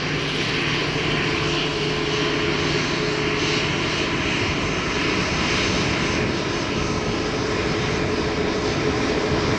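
Airbus A320neo's CFM LEAP-1A turbofan engines running at taxi power: a steady hiss with a constant low hum underneath.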